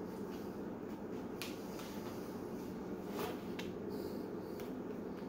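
A spoon clicking and scraping against a plastic bowl as saucy macaroni is stirred and scooped, a handful of separate sharp clicks over a steady background hum.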